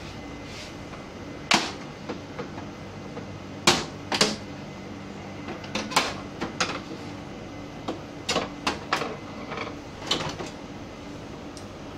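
Sharp plastic clicks and knocks at an irregular pace from an HP LaserJet printer's casing as its covers are handled and unclipped, the loudest few in the first half, over a steady low hum.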